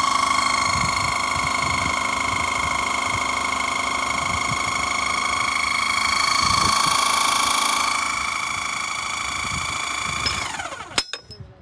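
Hydraulic pump driving a portable track pin press runs with a steady high whine while pressing a pin out of a crawler dozer's track link, then winds down about ten seconds in. A sharp knock follows just after.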